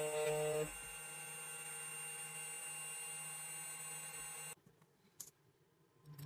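CNC key cutting machine running with a steady whine as it finishes cutting a key blank. A louder part of the sound drops away about a second in, and the machine stops suddenly past the middle, followed by a few faint clicks.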